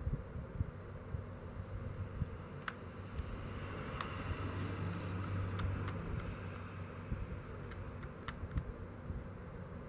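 Pressure flaking the edge of a knapped stone knife: a hand-held pressure flaker pushed against the blade, with sharp clicks as small flakes snap off, about six of them, and some scraping of the tool on the stone in between.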